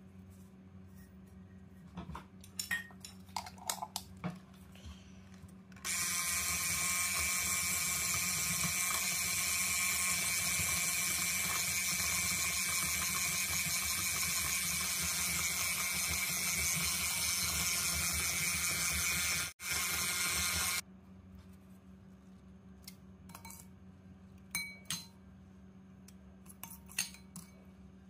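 Handheld electric mixer running steadily for about fifteen seconds, creaming butter and brown sugar in a glass bowl, with a brief break shortly before it stops. Light clinks and taps of utensils come before and after it.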